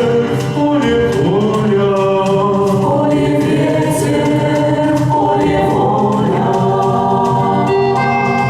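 A Cossack folk ensemble's choir singing in harmony, with sustained accompanying chords underneath. Near the end the steady chord carries on as the voices drop back.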